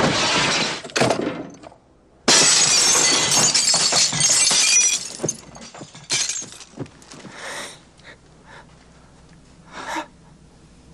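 Crashing and glass shattering: a crash dies away, then about two seconds in a loud shattering crash runs for a few seconds, followed by scattered smaller crashes of falling debris and a single knock near the end.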